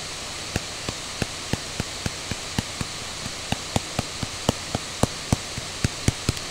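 Plastic pen tip of a Wacom Cintiq pen display tapping on the screen in quick dabbing strokes, about three to four light clicks a second starting about half a second in, over a steady hiss.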